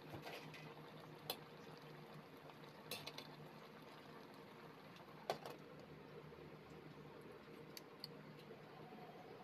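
Faint clinks of a metal utensil against a stainless steel pan of simmering vegetables, with a glass lid set down on the pan near the end, over a quiet steady hum.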